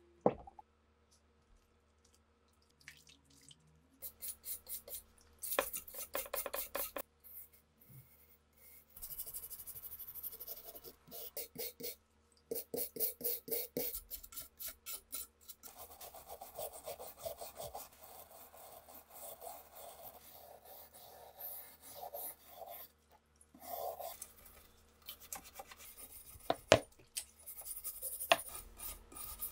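A brush scrubbing the wet, rusty perforated steel barrel shroud of a PPS submachine gun in runs of quick back-and-forth strokes, scouring off loosened rust. A sharp knock comes right at the start and another near the end.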